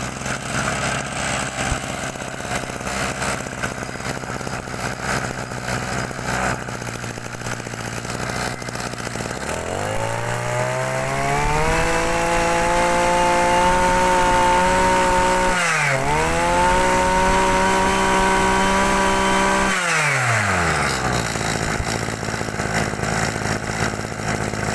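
Maruyama 26 two-stroke brush cutter engine idling, then revved up to high speed about ten seconds in and held there for about ten seconds, with a brief dip in speed midway. It then drops back to idle.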